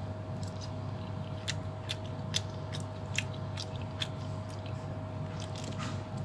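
A metal fork clicks and scrapes against a waxed-paper wrapper as pieces of rice noodle roll are speared, about a dozen short sharp clicks over a steady hum.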